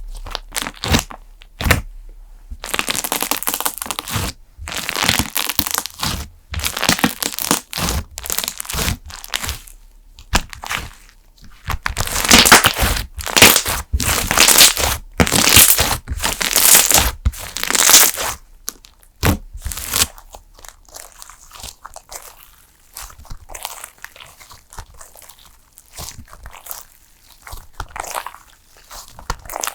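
A cream-textured slime being squished and kneaded by hand, giving bursts of crackling and clicking. The crackling is densest and loudest around the middle, between about 12 and 18 seconds in.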